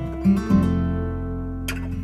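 Background music: an acoustic guitar strums a chord about half a second in and lets it ring.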